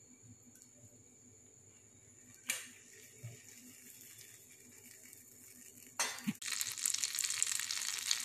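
Butter melting and sizzling in a hot nonstick frying pan. The sizzle is faint at first and becomes much louder and steadier from about six and a half seconds in. Two sharp knocks come about two and a half and six seconds in.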